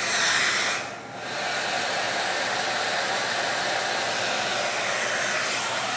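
Hair dryer running on its low fan setting with no heat: a steady rush of air that swells as it comes on, dips briefly about a second in, then holds even.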